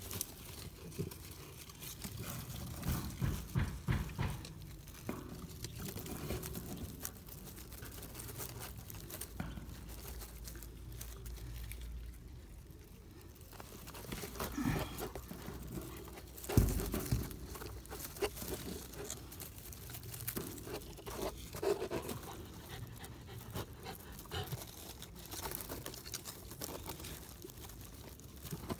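Quiet rustling and scuffing of dry leaves and sticks being handled close to the microphone, with a few small knocks, and a dog panting at times.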